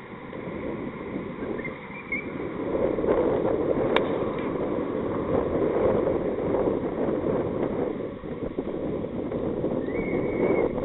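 Wind buffeting the microphone, with a single sharp crack about four seconds in as a cricket bat strikes the ball, a shot that goes for four.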